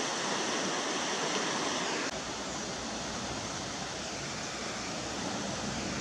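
River rapids: white water rushing over rocks in a steady, even rush that drops a little in level about two seconds in.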